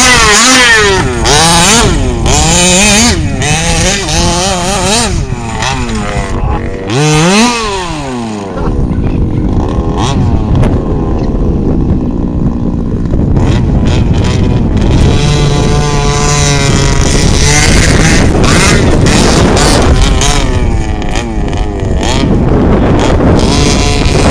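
Small two-stroke petrol engine of an FG 1/5-scale buggy revving up and down hard, its pitch swooping with the throttle. About eight seconds in it drops back to a steadier, lower running with a held note for a while, then revs again near the end.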